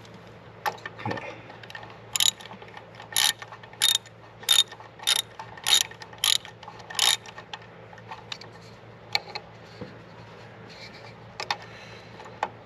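Hand ratchet wrench clicking in short bursts on its return strokes, about nine strokes in a steady rhythm, as an EGR valve mounting bolt is undone. A few scattered tool clicks follow.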